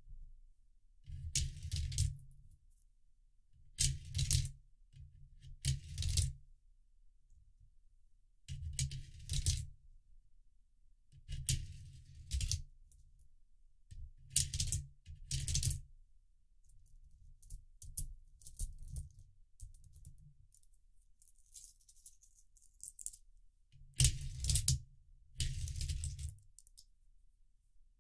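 Coins dropped one at a time into the funnel of a 3D-printed plastic coin sorter, each clattering and rattling down the chute into its slot with a low knock, about once every one to two seconds. There is a quieter spell of about four seconds past the middle.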